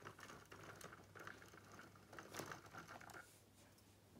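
Faint, irregular clicking and whirring from an old Hornby OO-gauge model steam locomotive's motor and wheels as it crawls slowly along the track, with a low steady hum underneath. The old motor is barely keeping the locomotive moving at a crawl.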